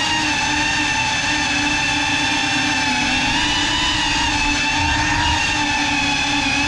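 FPV quadcopter's motors and propellers whining steadily while it hovers low, the pitch holding nearly level with slight wavers.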